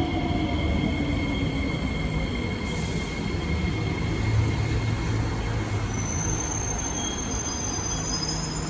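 Singapore MRT train slowing down: a falling electric motor whine fades out, then thin high-pitched wheel and brake squeals start about six seconds in over the steady rumble of the carriage.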